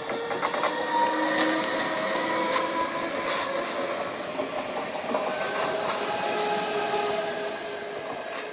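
NSB Class 72 electric multiple unit passing close by: steel wheels running on the rails, with a steady whine from its electric drive and a few sharp clicks near the start.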